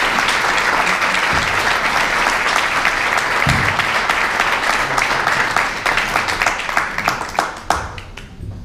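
Audience applause: many people clapping together, then thinning to a few last claps that die away near the end.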